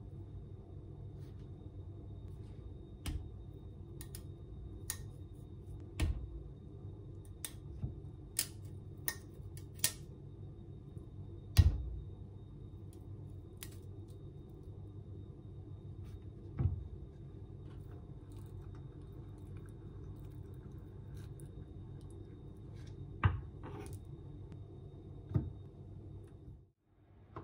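Handling sounds of avocado preparation on a wooden cutting board: a scattered series of short, sharp clicks and knocks, the loudest about halfway through, as the stone is knocked and worked out of the fruit with a knife, over a steady low hum.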